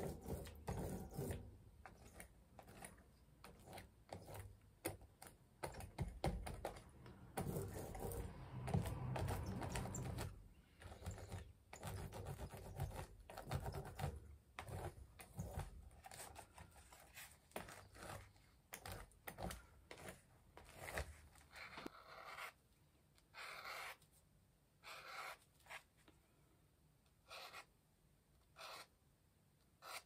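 A foam sponge dauber dabbed and rubbed over a paper art-journal page raised with texture paste: a quick run of soft taps and scrapes that thins out after about sixteen seconds into a few short scratchy strokes.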